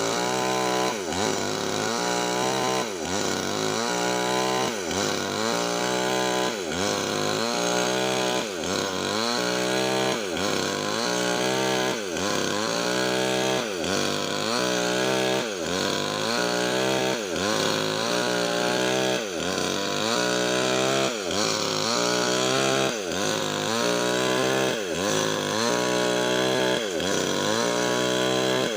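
Nixon chainsaw with a 25-inch bar ripping lengthwise through Medang wood, its engine running at full throttle. The engine note dips and recovers about once a second as the chain bites into the cut under load.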